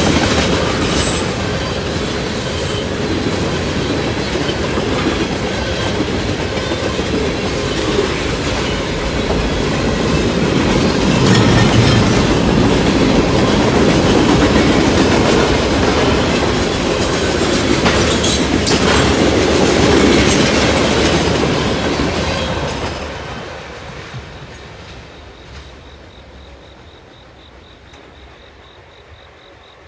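Freight cars of a Norfolk Southern train rolling past, steel wheels clacking steadily over the rail joints, with brief wheel squeals. About three quarters of the way through, the last car passes and the rumble dies away quickly.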